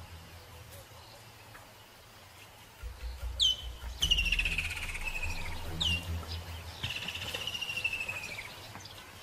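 Birds calling: drawn-out whistled notes that fall in pitch, with short sharp chirps between them, starting about three seconds in over a low rumble.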